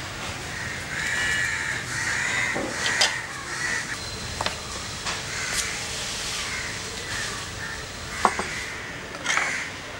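Birds calling again and again, with a few sharp clicks of crockery. The loudest click comes about eight seconds in, as a glass is set down on a table.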